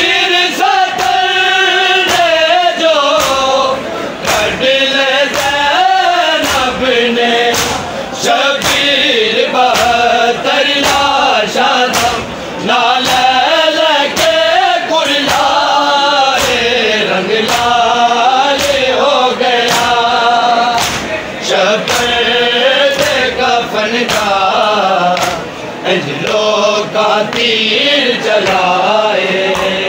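Group of men chanting a Shia noha (mourning lament) in unison, led by reciters, over sharp rhythmic chest-beating (matam) about once a second.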